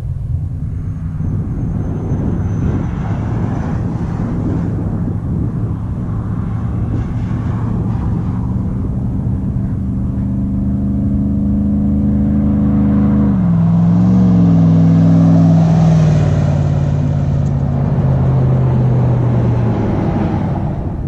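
Chevy Silverado's swapped 6.0-litre LS V8, with a Texas Speed 223/226 cam, Kooks 1-7/8 headers and a Borla XR-1 muffler, running hard on a drive-by with a steady exhaust note. About two-thirds of the way through, the pitch dips and then climbs again as the truck accelerates, and it is loudest soon after.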